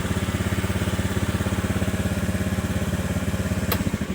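A small engine idling with an even beat of about nine pulses a second, stopping just before the end.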